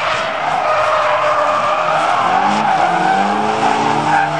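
Drift cars sliding sideways under throttle: engines revving with a shifting pitch over a steady squeal of tyres spinning and sliding on the asphalt.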